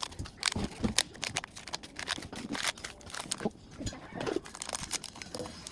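Small plastic toy pieces and packaging being handled: a quick run of sharp, irregular clicks and rustles.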